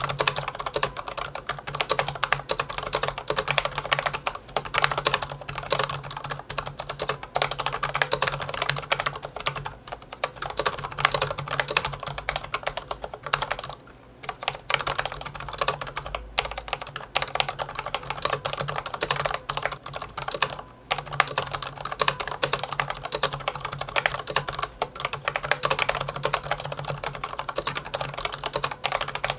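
Rapid typing on a Corsair K60 PRO RGB SE mechanical keyboard with Cherry Viola linear switches and double-shot PBT keycaps: a dense run of keystroke clacks with a few brief pauses. The board has a noticeable hollow case resonance.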